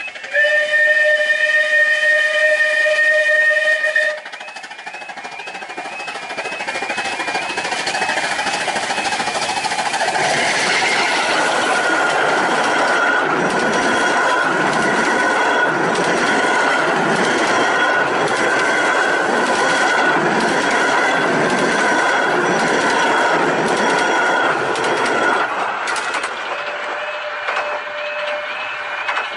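A level-crossing warning alarm warbles while a steam locomotive's whistle sounds once, held for about four seconds. Then the Romney, Hythe & Dymchurch Railway's 15-inch-gauge Pacific steam locomotive Northern Chief and its train of carriages pass, with a rumble and a regular clickety-clack of wheels over rail joints. The train fades out near the end, leaving the alarm warbling.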